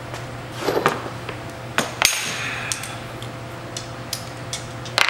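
Metal hand tools clanking against metal motorcycle chassis parts during a teardown: a few sharp knocks and clinks, the loudest about two seconds in with a short metallic ring.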